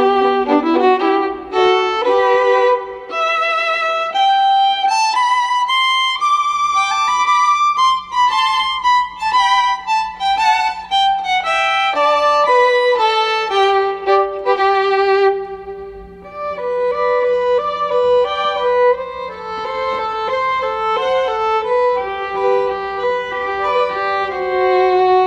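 Background music: a violin playing a flowing melody with vibrato over a faint steady low tone.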